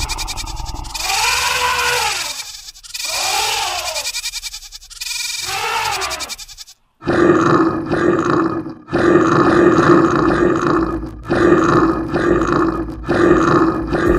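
Animal roar sound effects: three long calls that rise and fall in pitch, a brief silence about halfway, then four long, steadier, lower calls, each cut off by a short break.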